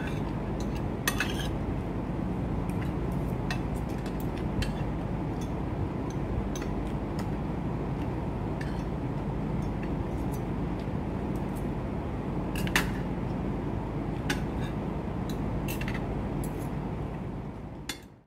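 Cutlery clinking against plates and dishes every few seconds over a steady background hum. The sound cuts off abruptly near the end.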